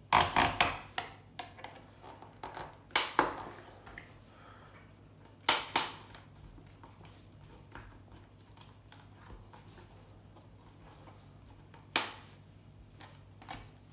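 Sharp clicks and snaps of a screwdriver working at stubborn chips on a circuit board inside a metal set-top box chassis: a quick run of clicks in the first second, then single or paired snaps about three, five and a half and twelve seconds in, with quieter handling between.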